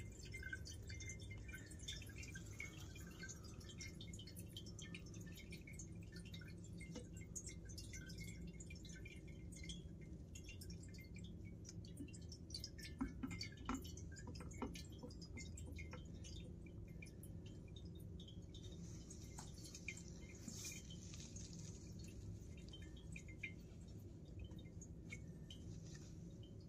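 Filtered Jet-A fuel dripping and trickling from a Mr. Funnel filter funnel's outlet tube into a glass jar. The drips are faint and irregular, over a steady low hum. This is clean fuel passing the funnel's water-and-sediment filters.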